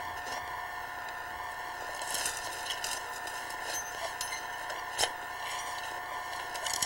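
Steady hum and hiss under scattered crackles of twigs and brush as someone moves and works in snowy undergrowth, with one sharp snap about five seconds in.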